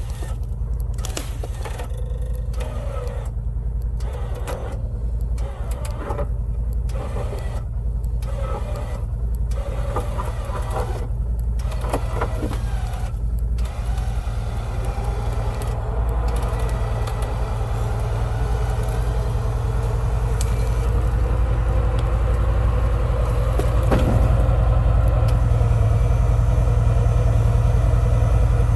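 Electric winch on a side-by-side pulling the vehicle off a ledge, its motor running under load over the low hum of the vehicle's engine in neutral. It runs stop-start at first, in pulls a second or so apart, then steadily from about halfway, getting a little louder near the end.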